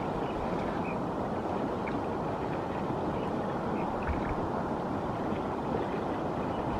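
Steady rushing wind noise on the microphone, with a few faint high chirps now and then.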